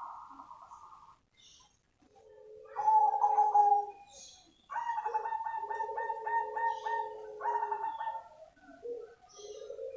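Zebra dove (perkutut), black cemani variety, cooing in its song. It gives several phrases of soft coos, the longest a quick stuttered run of repeated notes in the middle, and a new phrase starts near the end.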